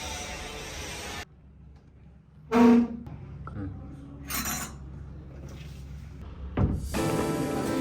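Location sound with a short, loud voiced call about two and a half seconds in and a few faint noises, then background music with guitar starting near the end.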